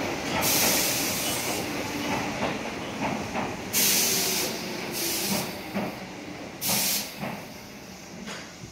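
Tobu 8000 series electric train pulling away from the platform, its wheels rumbling on the rails and fading as it goes. Several short bursts of hiss come over it.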